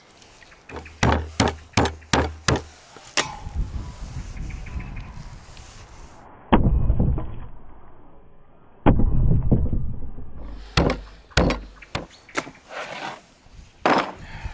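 Raw chicken breast being pounded flat on a wooden cutting board: sharp whacks, a quick run of five near the start, then two heavier low thuds that die away slowly, then more whacks near the end.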